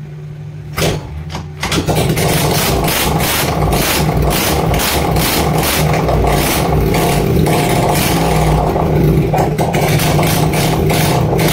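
TVS Jupiter scooter's single-cylinder four-stroke engine starting about two seconds in on its first start after a full rebuild, then running steadily with its silencer removed.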